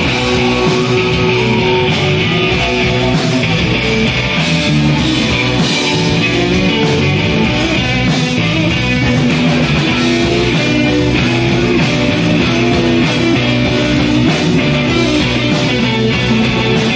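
Live rock band playing loudly: two electric guitars over a drum kit.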